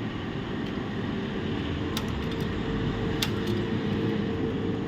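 Steady room hum from a fan, with a faint steady tone joining about two seconds in and two faint clicks.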